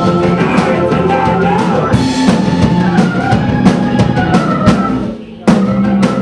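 A rock band playing loudly with a drum kit and keyboards, drums striking steadily. About five seconds in the music drops away, then one loud full-band hit rings out, typical of a song's closing stroke.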